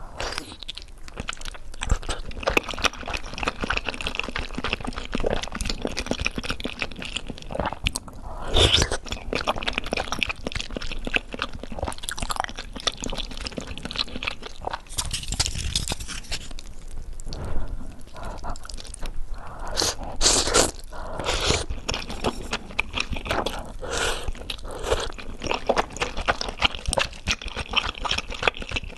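Close-up chewing and biting of spicy fire noodles and soft-boiled egg: a continuous, irregular run of wet mouth clicks and crunching.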